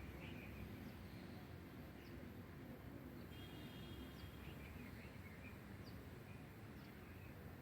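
Faint, steady background noise with scattered, faint bird chirps, including a brief trill near the middle.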